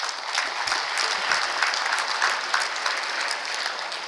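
Audience applauding: many hands clapping in a dense patter that starts at once and begins to fade near the end.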